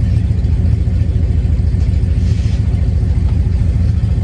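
Van engine running with a loud, deep exhaust rumble that pulses quickly and evenly, described as sounding like a race car.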